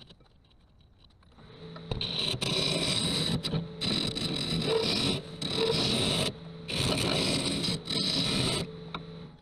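Turning tool cutting inside the opening of an ash wood vessel spinning on a wood lathe. It makes a loud scraping hiss of shavings in about five passes, each a second or so long, with short breaks between them, starting about two seconds in.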